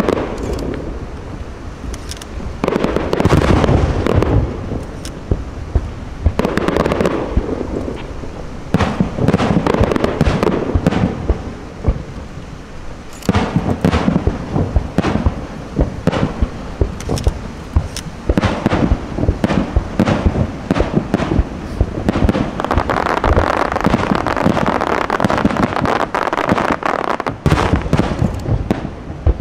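Aerial firework shells bursting in a continuous barrage of sharp bangs, thickening into dense stretches of overlapping bursts several times, most of all in the last few seconds.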